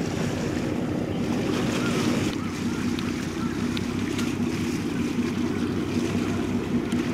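Wind rumbling on the microphone over sea water washing against the shore, with a faint steady hum underneath.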